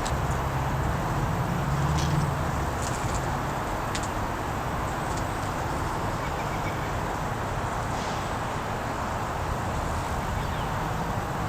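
Steady hiss-like background noise with a low hum in the first couple of seconds and a few faint clicks.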